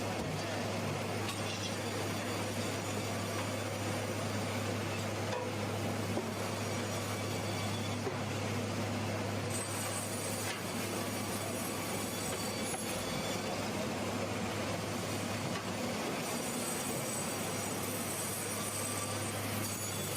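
Sawmill machinery running steadily: a constant low hum under an even wash of mechanical noise.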